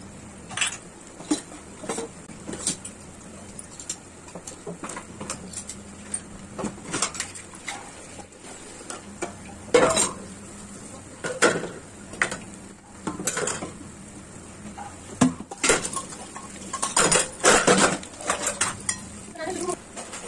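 A metal knife clinking and scraping against a nonstick frying pan as bread slices are turned over, over a steady sizzle of the bread frying in oil. The clinks come irregularly, loudest in clusters about halfway through and near the end.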